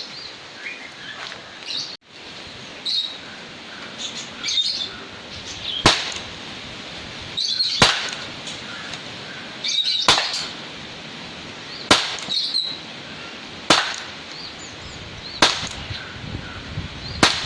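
Beretta 84 FS blowback BB pistol firing its last pellets: about seven sharp single shots, one roughly every two seconds, until the magazine is empty. Birds chirp in the background.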